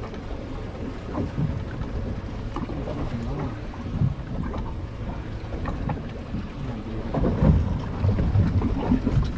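Wind buffeting the microphone on a fishing boat at sea, with the rumble growing louder about seven seconds in.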